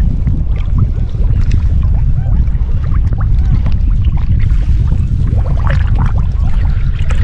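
Shallow river water lapping, trickling and gurgling around a whitebait net and a wader's legs, under a steady heavy low rumble. The splashing gets busier from about halfway through.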